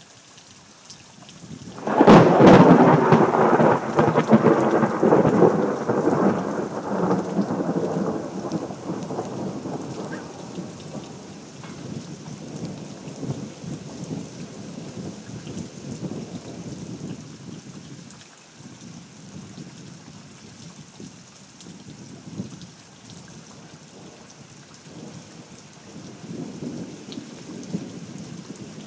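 A thunderclap breaks about two seconds in and rolls on as a long low rumble that slowly fades over about ten seconds, with quieter rumbling swelling again near the end. Steady rain hisses underneath.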